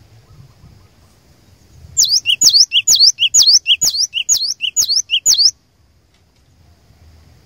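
Cinereous tit (gelatik batu) singing a fast run of about eight repeated two-note phrases, each a sharp high sweeping whistle followed by a lower note. The song starts about two seconds in and stops abruptly a little past halfway.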